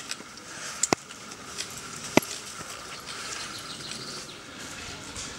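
Outdoor background noise with a faint steady high tone, broken by two sharp clicks, about a second and about two seconds in.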